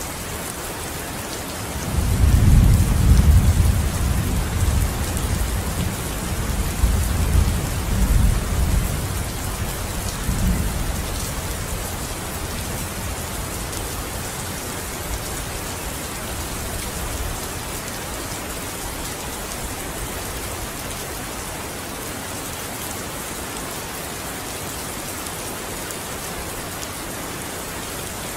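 Steady rain pattering, with a low rumble of thunder that starts about two seconds in, swells twice and dies away after about ten seconds, leaving only the rain.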